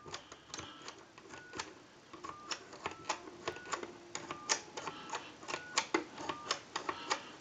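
Push-button keypad of a Mickey Mouse telephone pressed key after key, each press a light click, about two a second. Faint short touch-tone beeps at several pitches come with the presses as the digits are dialled through in turn.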